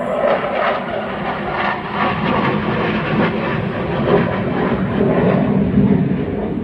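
Military fighter jet flying overhead: loud, continuous jet engine roar with a rough, crackling edge.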